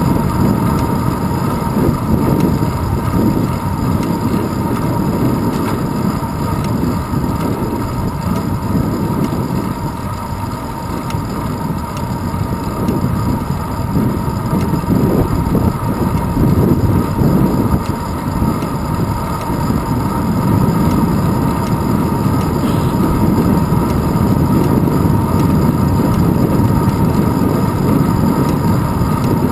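Wind buffeting the microphone of a handlebar-mounted GoPro on a moving bicycle, mixed with tyre rumble from the asphalt carried through the handlebars; the low rumble swells and eases over several seconds, with a faint steady whine underneath.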